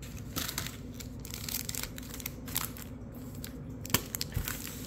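Wrappers of 2022 Bowman baseball card packs crinkling as hands shuffle and stack the packs, with a sharp tap about four seconds in.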